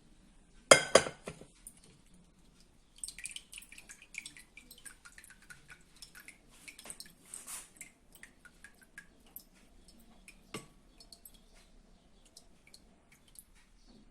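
Kitchenware being handled: one loud ringing clank of a pot or glass about a second in, then lighter clinks, taps and drips.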